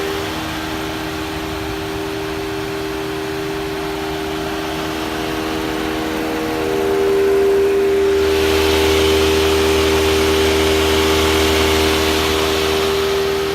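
A steady mechanical whirring from a car, with a constant tone that grows louder and fuller about eight seconds in, then eases a little near the end.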